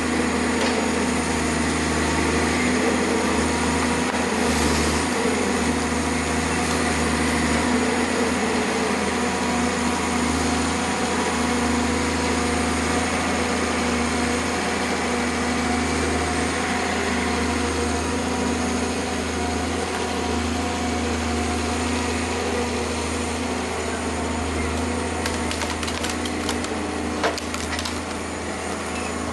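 Forest harvester's diesel engine and hydraulics running steadily under load as the harvester head grips and handles a tree. A few sharp cracks of breaking wood and branches come near the end.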